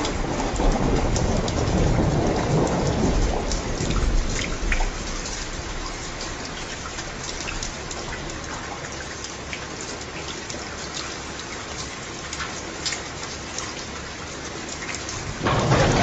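Steady rain with scattered sharp drop ticks, and rolling thunder: a low rumble fades over the first four seconds or so, and a new roll of thunder starts just before the end.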